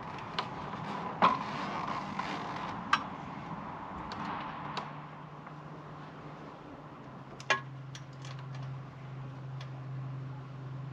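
Scattered light clicks and knocks of hardware and parts being handled during a light-fixture installation, a few sharper taps standing out. A steady low hum comes in about halfway through.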